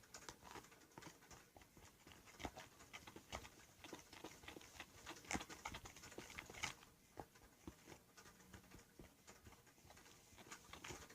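Faint, irregular clicks and taps, a few sharper ones in the middle, typical of a fork stirring and scraping a stiff cornstarch-and-toothpaste dough in a container.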